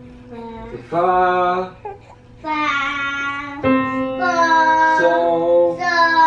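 A woman singing a few long held notes, with a piano sounding faintly underneath.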